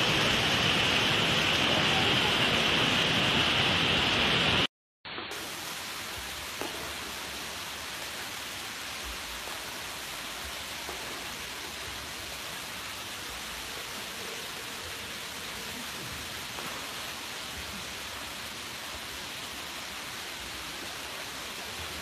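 Steady rushing of a waterfall, an even hiss of falling water. It cuts out for a moment about five seconds in and comes back quieter and just as even.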